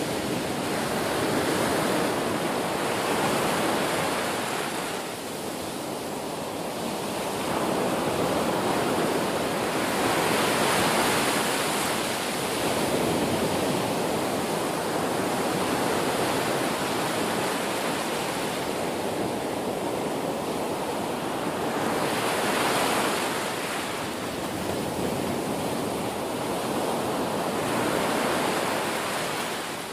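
Ocean waves breaking and washing in through shallow surf, a continuous rushing that swells louder every several seconds as each wave comes in.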